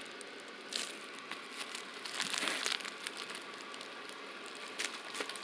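Crinkling and rustling of firecracker packs' wrapping being handled, in short bursts with a few light clicks, busiest around the middle.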